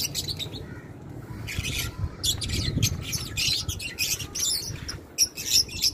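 Caged small birds chirping in quick, irregular bursts, over a low rumble.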